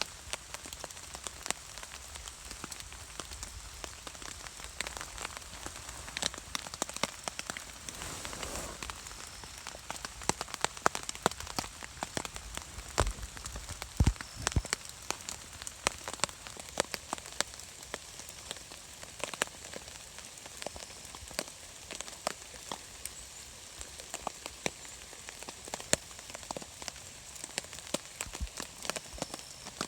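Rain falling, with scattered drops landing as irregular sharp taps over a steady hiss.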